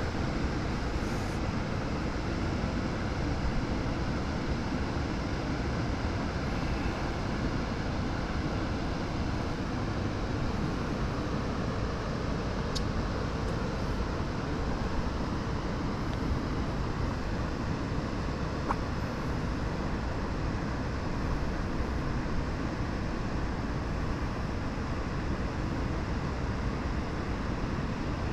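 Steady rushing outdoor background noise with no pitch or rhythm, even throughout, with one or two faint clicks.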